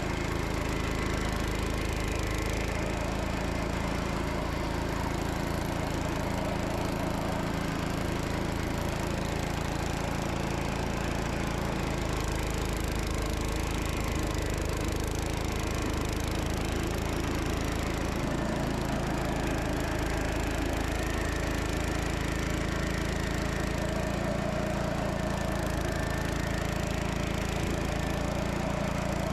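Gravely Commercial 10 walk-behind tractor's single-cylinder Kohler engine running steadily under load, driving an MA-115 'dog eater' snow blower through deep snow.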